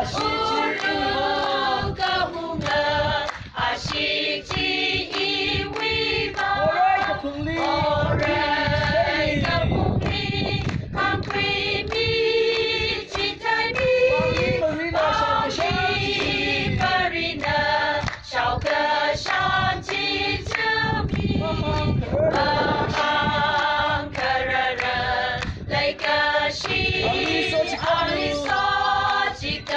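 Mixed choir of women and men singing together, with hands clapping along in time.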